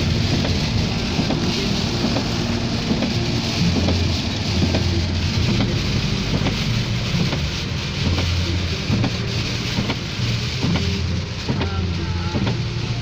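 Heavy rain falling steadily and pattering on surfaces, with scattered sharper drop hits. A steady low rumble runs beneath it.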